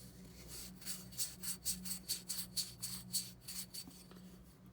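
Hand rubbing dirt off an old glass bottle to bring up its writing: a run of quick, rhythmic rubbing strokes, several a second, that stops about four seconds in.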